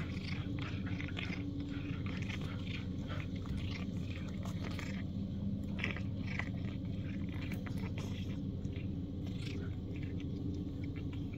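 A farm cat chewing and biting into a chick it is eating, a run of irregular short crunching clicks, over a steady low hum.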